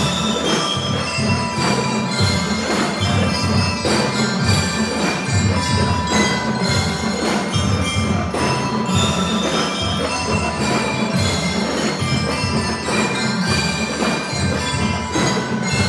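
Drum and lyre corps playing: bell lyres ring out a melody over a steady marching drum beat.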